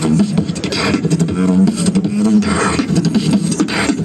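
Human beatboxing into a handheld microphone: a fast run of percussive drum-like hits with a low held bass note underneath.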